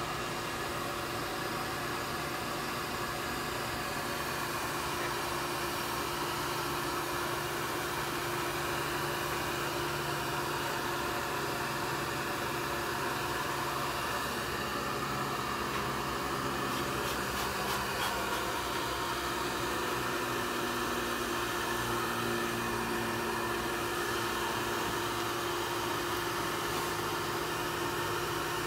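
Bee vacuum's motor running steadily, a constant hum with no change in pitch.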